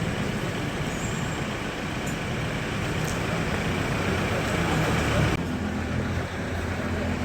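A car engine running steadily, with a deeper hum that strengthens about five seconds in.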